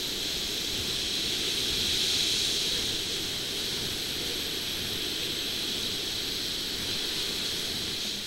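Steady rushing noise of wind and ocean surf, with no distinct calls or other sudden sounds.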